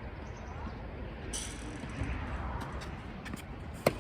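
Steady low outdoor rumble, with a single sharp knock just before the end.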